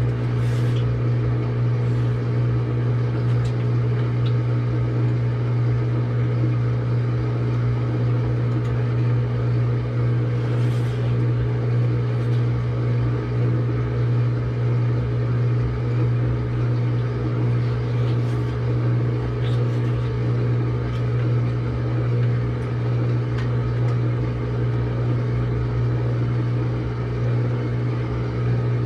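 Samsung washing machine running mid-cycle, a steady mechanical hum that does not change, with a few faint soft clicks.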